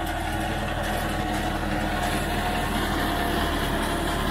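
New Holland 3630 tractor pulling a Jagatjit super seeder in the field: the engine runs steadily at about 1200–1300 rpm, with the seeder's rotor working the soil and a steady whine above the engine.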